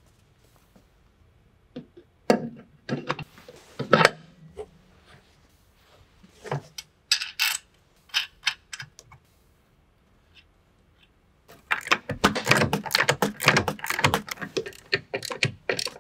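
Scattered metal clicks and knocks as a master cylinder is fitted onto the brake booster's studs, then, after a pause, a ratchet wrench clicking rapidly for about four seconds as the mounting nuts are tightened.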